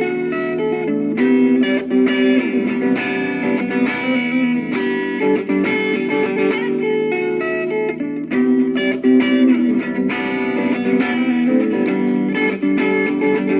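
Guitar music: plucked guitar notes over sustained chords, playing steadily.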